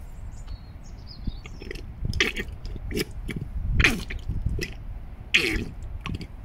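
Fork oil glugging and spluttering out of an upturned Honda Deauville fork leg into a plastic container. The gurgles are irregular, about one a second, several with a falling pitch.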